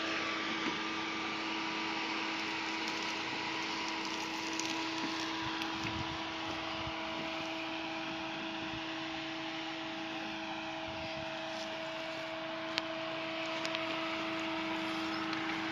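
Engine of a small 4x4 off-roader running at steady revs while it crawls over rough ground, an even, unchanging hum. There is one sharp click near the end.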